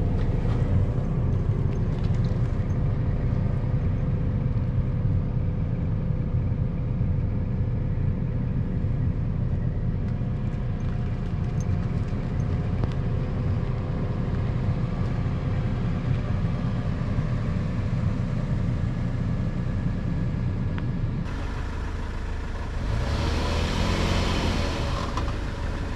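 A 4Runner's engine and road noise, a steady drone heard while driving. About 21 seconds in the sound changes abruptly, and a brief rushing hiss follows a couple of seconds later.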